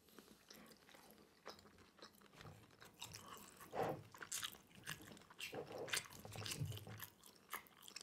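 A person chewing pan-fried rice noodle rolls (cheung fun), faint, wet mouth sounds with many small clicks and smacks, growing busier about halfway through.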